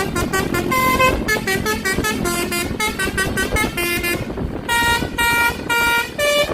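Indonesian 'telolet' (basuri) multi-tone bus horn playing a quick melody of short, separate notes over a bus engine's rumble. About four seconds in it pauses briefly, then goes on with longer notes.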